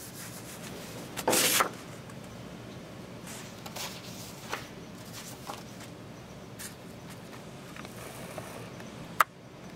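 Sheets of paper rustling briefly and loudly as a hand-held paper slate is moved away from the camera, then a few faint rustles against steady room noise, and one sharp click near the end.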